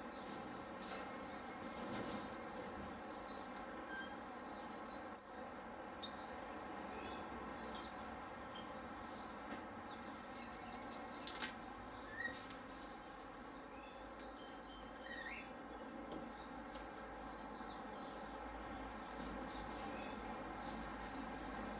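Small aviary birds giving short, high chirps now and then, the two loudest about five and eight seconds in, over a steady background hum.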